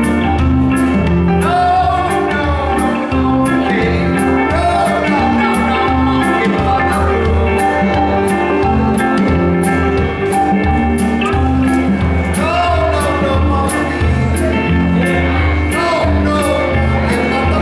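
Live blues band playing: electric bass, drums keeping a steady beat on the cymbals, guitar and keyboard, with a voice singing in short phrases through a megaphone-style microphone.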